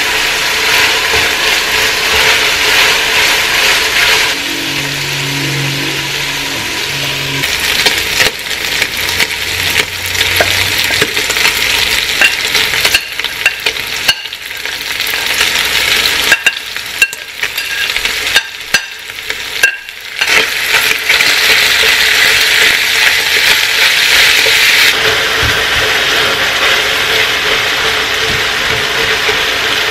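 Ground meat frying in a large nonstick pot, with a steady sizzle as it is stirred with a silicone spatula. Around the middle the sizzle drops away for a few seconds, with sharp clicks and scrapes as more raw meat is pushed in off a plate with a fork, then it comes back up.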